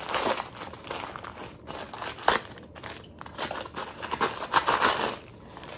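White packing paper crinkling and rustling in irregular bursts as it is pulled off a wrapped can by hand.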